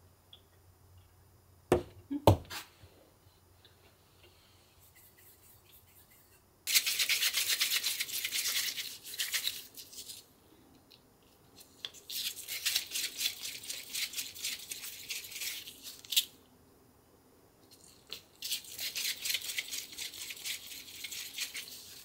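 Hands rolling small pieces of cornstarch and condensed-milk dough between the palms into balls: a dry rubbing in three stretches of a few seconds each. Two sharp clicks come about two seconds in.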